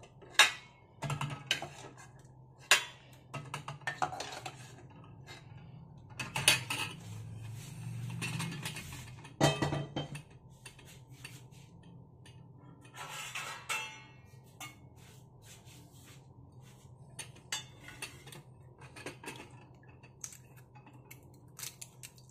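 Steel spoon clinking against stainless steel pots as boiled eggs are scooped out of hot water and set down in a bowl of cold water: a few sharp clinks in the first half, then only light taps and clicks.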